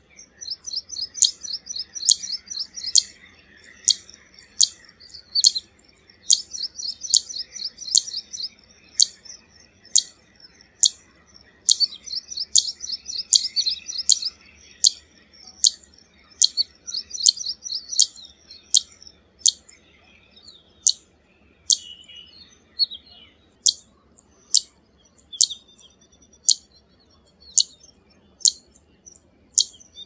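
Zitting cisticola (Cisticola juncidis) calling: sharp, high 'zit' notes repeated every half second or so, broken by several stretches of rapid chattering notes in the first half.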